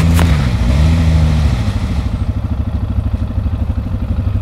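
ATV engine running under throttle while the quad sits stuck in deep mud, its pitch dipping briefly and recovering, with a single sharp click just after the start. About a second and a half in, the engine drops back to a quieter, rapidly pulsing idle.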